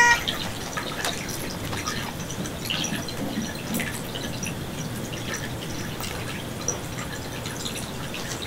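A steady low hiss with faint, scattered small ticks and clicks, like light dripping or trickling.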